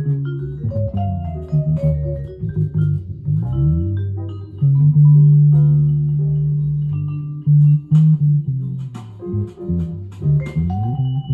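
Electric guitar with flatwound strings played unaccompanied, mixing short plucked single-note lines and chords, with one low note held for about two seconds in the middle. Near the end a steady high whistle comes in and keeps sounding under the guitar.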